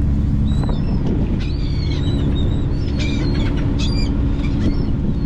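Shrimp trawler's engine running steadily, with many seabirds calling over the boat in short, high chirps and squawks, several overlapping.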